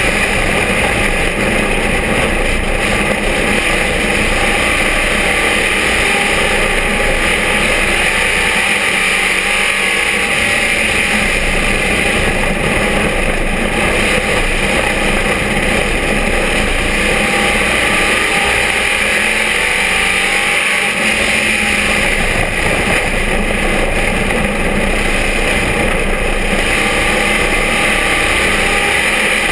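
Vintage dirt-track stock car's engine running hard at racing speed, heard from inside the open cockpit, loud and steady throughout.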